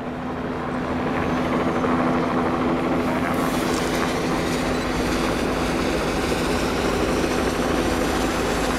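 Several trains passing together at speed, among them the steam locomotive 60103 Flying Scotsman and an HST diesel power car. Wheels rumble on the rail under a steady engine drone, building over the first two seconds and then holding.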